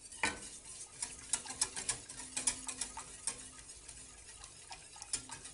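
Wire balloon whisk clicking and scraping irregularly against a stainless steel saucepan as it stirs white sauce of milk and flour roux, cooking while it thickens.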